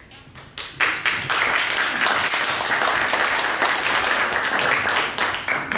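Audience applauding: a few scattered claps that build about a second in to steady, full clapping, which dies away near the end.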